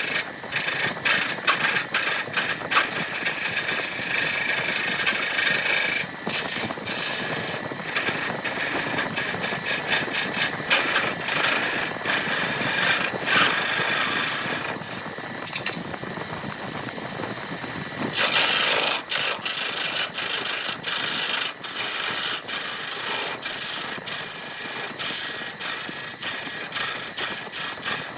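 A power tool running on wood, with a steady machine noise and many sharp clicks and knocks. It eases off and dulls for a few seconds past the middle, then comes back loudest.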